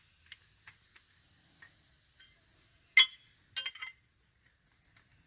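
Metal hand tools on a steel hydraulic fitting: a few light ticks, then two sharp ringing metal clinks about half a second apart, around three seconds in.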